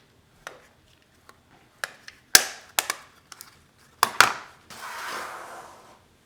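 Packaging and parts of a Touchfire iPad keyboard being handled: a string of sharp clicks and knocks, the loudest about two and a half seconds in, then about a second of rustling or scraping near the end.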